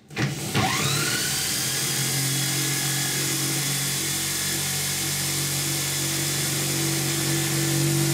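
710-watt electric power drill spinning up quickly, its whine rising over the first second, then running steadily at full speed as it turns the shaft of a homemade permanent-magnet generator.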